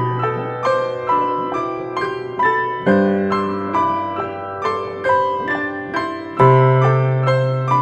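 Gentle solo piano music: a slow melody of single notes, about two a second, each fading after it is struck, over deep bass notes that change about three seconds in and again near the end.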